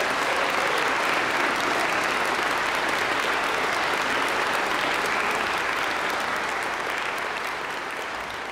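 Concert audience applauding, steady and then slowly dying down near the end.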